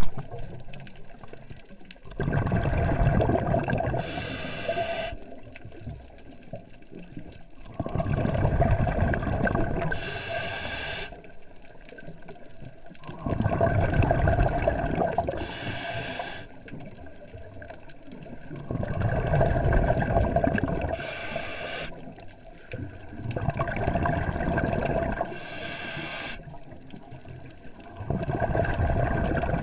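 Scuba diver breathing through a regulator underwater: a loud rumble of exhaled bubbles lasting a few seconds alternates with a shorter, higher hiss of each inhale, in a steady cycle about every five to six seconds, five breaths in all.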